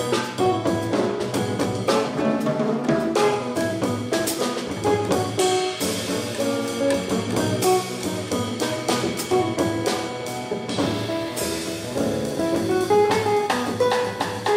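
Samba-jazz trio playing: a nylon-string classical guitar picks melody and chords over an upright double bass and a drum kit with frequent cymbal and drum strokes.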